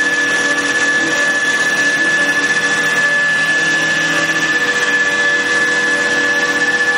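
Tianjiao CNC wood lathe running steadily while turning a sofa leg, a constant high whine over a dense, even machine noise.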